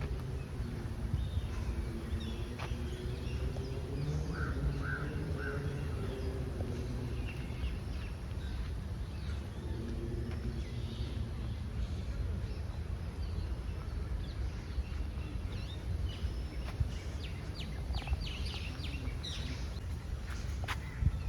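Outdoor park ambience: a steady low rumble with scattered bird chirps, faint distant voices and a few sharp ticks near the end.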